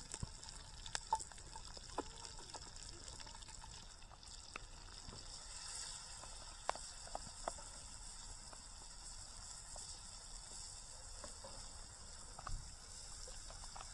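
Butter and onions sizzling in a pan over a campfire: a faint steady hiss with scattered small pops.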